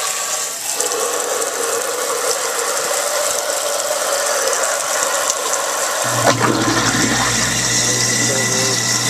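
Tap water running steadily into a kitchen sink and down the just-snaked drain. About six seconds in, a click is followed by a steady low hum as the garbage disposal is switched on and runs.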